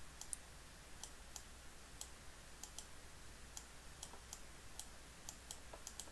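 Faint, irregular light clicks of a stylus tapping down on a pen tablet, stroke by stroke, as words are handwritten on screen, over a faint steady low electrical hum.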